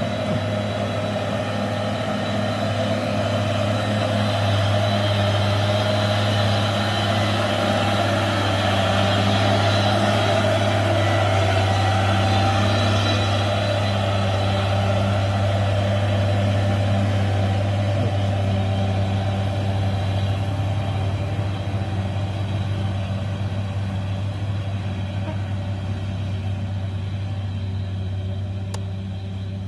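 Diesel engine of a two-axle truck loaded with oil palm fruit bunches, pulling up a dirt hill. A steady low drone grows louder as the truck passes close about a third of the way in, then fades as it drives off up the road.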